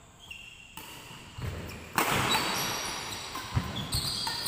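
Badminton rally: a racket hitting the shuttlecock with one sharp, loud hit about two seconds in that rings on in the large hall. Footsteps thud and court shoes squeak on the wooden floor after it.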